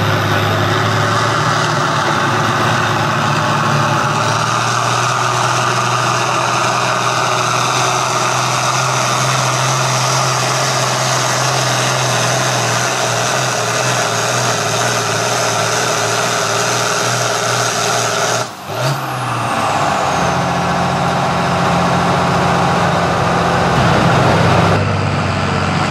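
International Harvester diesel farm tractor pulling a weight-transfer sled at full throttle, its engine running hard with a steady low note. About three-quarters of the way in the engine sound briefly drops out, then comes back at a higher pitch.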